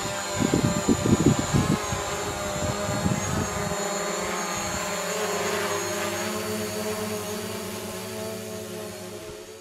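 Four-wheeler (ATV) engine running at a steady speed, with low thumping in the first few seconds. It fades out near the end.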